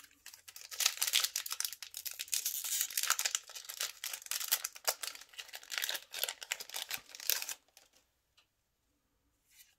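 Foil wrapper of a trading-card booster pack being torn open and crinkled by hand: a dense crackling rustle that stops about three-quarters of the way through, followed by a few faint soft taps.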